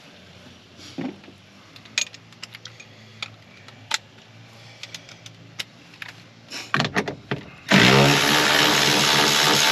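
Light clicks and knocks of tools being handled, then about eight seconds in a handheld power drill starts up and runs steadily and loudly.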